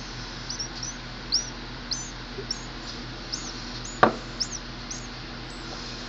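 A featherless nestling bird giving begging chirps while being hand-fed: about a dozen short, high peeps, roughly two a second, each rising then dipping. A single sharp click about four seconds in is the loudest sound, over a steady low hum.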